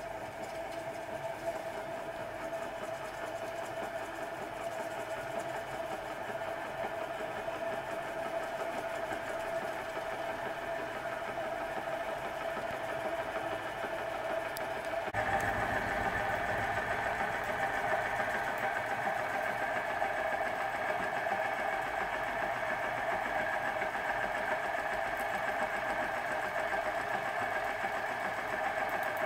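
Huxtable hot air engine (a small Stirling-type engine with a 1-inch bore and stroke, ball-bearing crankshaft and cast-iron flywheel) running steadily under its gas burner. It makes a fast, even mechanical whirr and clatter from piston, crank and flywheel. About halfway in, the sound becomes louder and fuller.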